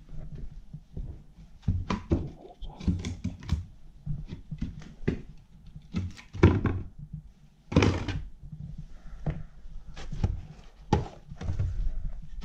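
Irregular thuds and knocks on old bare wooden floorboards as boots step across them and kick at a loose board. The loudest come about six and a half and eight seconds in.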